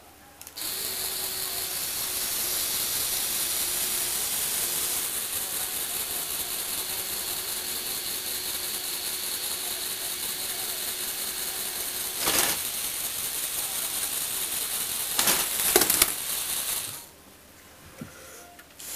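Lego Technic electric motors driving plastic gears, a steady high whirring with a fine clicking texture. A few louder clacks come in the later part, and the mechanism stops about seventeen seconds in.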